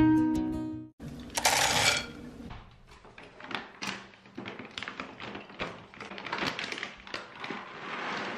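Acoustic guitar music ends in the first second. Then a plastic cat-food bag crinkles as it is handled and opened: one loud crinkle about a second and a half in, then a long run of small crinkles and taps.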